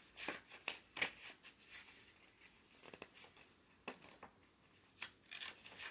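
Tarot cards and paper being handled, likely while she finds the card in the guidebook: short, soft rustles and clicks, several at a time with quieter gaps between.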